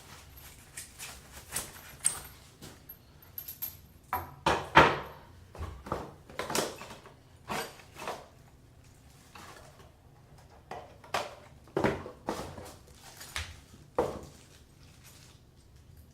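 Irregular clicks and knocks of hard faucet parts and packaging being handled and set down, one louder knock about five seconds in.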